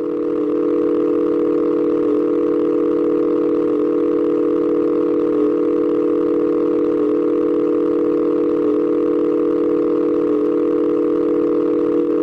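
Emergency alert tone: a loud, low electronic tone of two pitches sounded together, held dead steady without rising, falling or pulsing.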